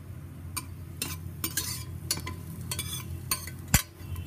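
Metal spoon stirring and clinking against a steel pressure cooker while pieces of Amritsari vadi sizzle in hot oil, with a louder knock of the spoon on the pot near the end.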